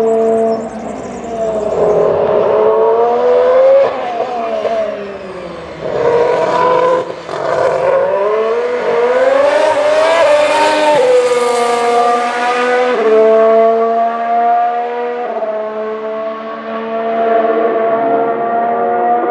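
Ferrari Formula 1 car's 1.6-litre turbocharged hybrid V6 accelerating, its pitch climbing through the gears twice, then holding a near-steady high note with small steps up and down.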